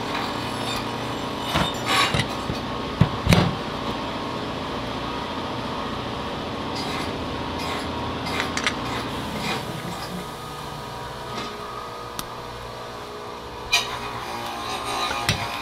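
Parts and tools being handled during alternator assembly: a few sharp knocks and clicks, the loudest about three seconds in, over a steady hum.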